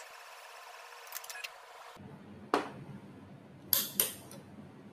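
Handling of a nail printer: a sharp plastic knock about two and a half seconds in, then a short cluster of clicks and rattles a second later as a finger is set into the printer's finger slot, over faint room noise.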